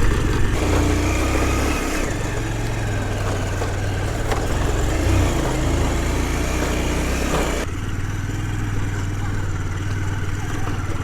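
Vehicle engine running steadily under load while climbing a hill road, with road noise; the sound shifts about two-thirds of the way through.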